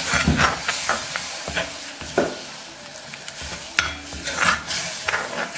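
A steel spoon stirs and scrapes a wet tomato-onion masala around a black iron kadai, with several scraping strokes over a steady sizzle of the mixture cooking. The strokes come thickest near the start and again about four seconds in.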